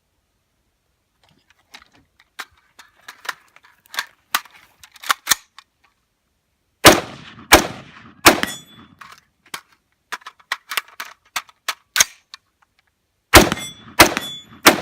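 AR-15 rifle in a speed drill: clicking and rattling as it is loaded, then three shots in quick succession about 0.7 s apart, more clicking during a magazine change, and three more quick shots near the end.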